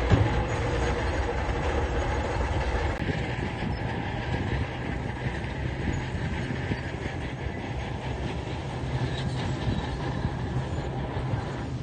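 Diesel engine of a heavy earthmoving machine running steadily, with a low, even rumble and mechanical clatter.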